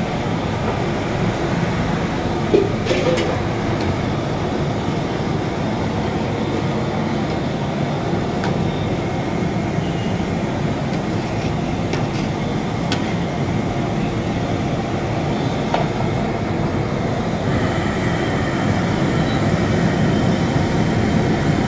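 Steady rumbling noise with a few faint clicks.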